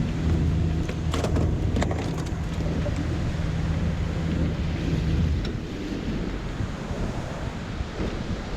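An engine running steadily under heavy wind noise on the microphone; the engine's hum drops away about five seconds in, leaving the rush of wind.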